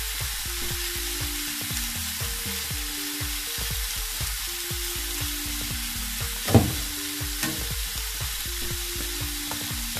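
Chopped broccoli sizzling in a frying pan while a metal spatula stirs and scrapes through it, with one sharp knock about six and a half seconds in.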